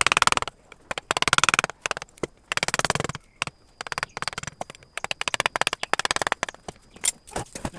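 Wooden mallet tapping a carving chisel into wood in quick runs of rapid light taps, each run under a second, with short pauses between.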